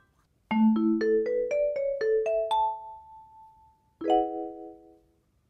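A short mallet-percussion jingle: a quick run of about nine struck notes, roughly four a second, climbing in pitch, with the top note left ringing. After a brief pause a single struck chord sounds and fades away.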